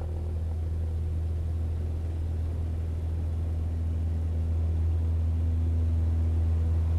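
Bombardier Dash 8 Q400 turboprop rolling on the runway, its propellers and engines giving a steady low hum with a fainter tone above it, growing slightly louder.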